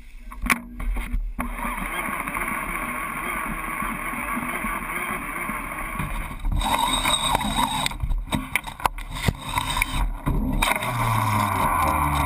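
Steady boat engine rumble and water noise heard through a camera mounted on a fishing reel, with a few sharp clicks and sudden breaks where the sound cuts.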